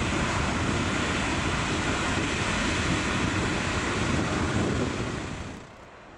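Two BLS Re 465 electric locomotives running past coupled together, a steady rushing noise with wind on the microphone, which drops away sharply near the end.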